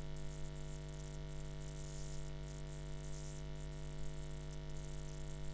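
Steady electrical hum with a layer of hiss, unchanging throughout, with no other sound on top.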